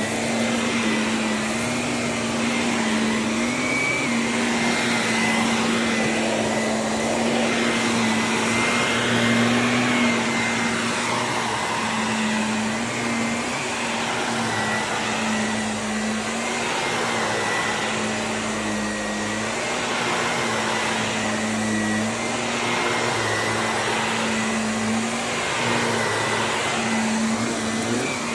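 Vacuum cleaner running steadily with a constant hum and a thin high whine over a rushing hiss, its tone shifting every couple of seconds.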